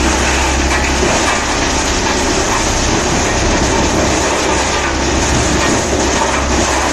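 Large industrial wood chipper running under load, a loud, steady rattling clatter of wood being chipped over a constant low hum.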